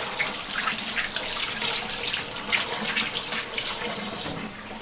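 Kitchen tap running into a sink, the water splashing unevenly as a raw salmon fillet is rinsed under the stream by hand.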